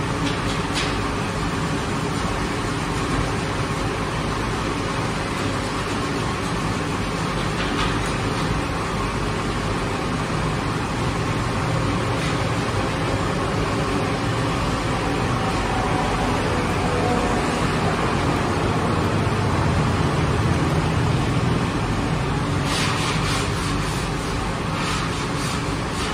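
Steady mechanical hum and rumble of bakery machinery. A flurry of light taps comes near the end.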